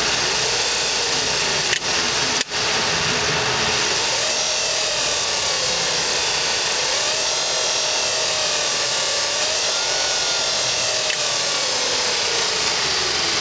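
Electric motor running on its motor controller, a steady loud whirring with a faint whine that rises and falls in pitch as the speed varies. Two sharp clicks come about two seconds in.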